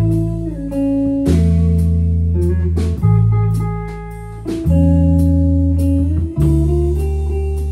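Jazz guitar trio playing a waltz: electric guitar chords and lines over bass and drums, with a new low bass note roughly every second and a half and cymbal strokes keeping time.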